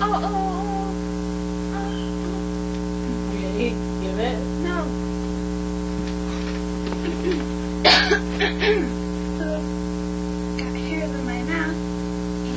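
Steady electrical mains hum with a long row of overtones, with faint voices over it that are briefly louder about eight seconds in.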